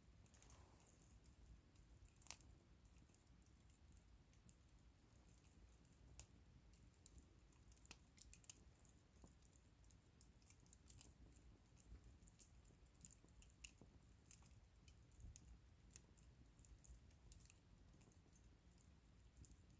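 Faint, sparse crackling of a wood bonfire: scattered small ticks and snaps, with one sharper pop about two seconds in.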